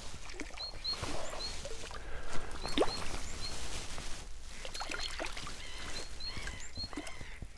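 A hooked perch splashing at the surface as it is reeled in to the bank on a spinning rod, with short high chirps repeating through it.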